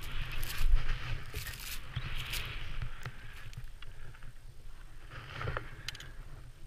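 Skis hissing through deep powder snow in repeated whooshes as the skier turns, over a steady low rumble of wind buffeting the helmet camera's microphone.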